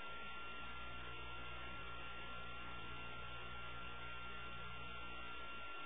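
Faint, steady electrical mains hum with hiss and a thin high whine on the soundtrack before the music starts; the low part of the hum drops out near the end.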